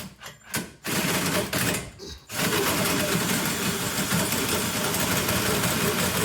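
Power drill in low gear driving a hole saw, grinding its way through the metal for a trailer connector. It stops twice in the first couple of seconds, then runs steadily.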